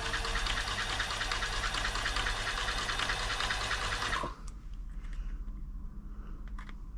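Toyota 2640 sewing machine running under its motor, its mechanism being worked to spread freshly applied oil, then stopping abruptly about four seconds in; a few light clicks follow.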